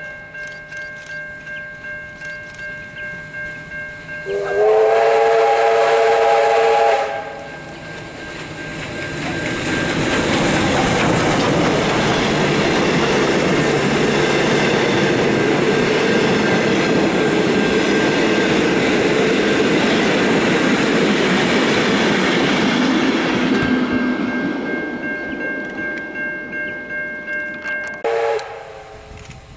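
Steam locomotive R761, a 4-6-4 R class, sounds its chime whistle once for about two and a half seconds. It then passes hauling its carriages: a long rush of exhaust and wheel noise that builds and fades over about fifteen seconds. A steady ringing pulses about twice a second before the whistle and again after the train has gone.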